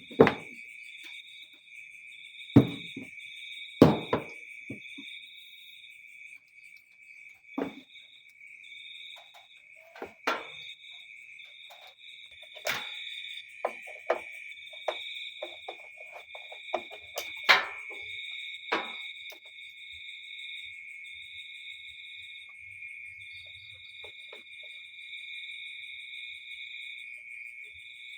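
A steady, high insect trill with a pulsing upper note throughout, typical of crickets, over which come scattered sharp knocks and clicks, about a dozen, the loudest near the start and at about 4 and 17 seconds in.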